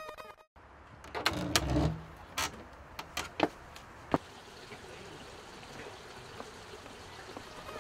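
Music cuts off about half a second in, followed by a low rumble and a handful of sharp clicks and knocks over the next three seconds, then a faint steady hiss.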